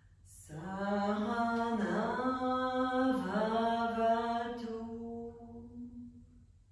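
A woman chanting a mantra in one long breath, her voice held on a steady pitch that steps down and back up a couple of times as the syllables change, then fading out near the end.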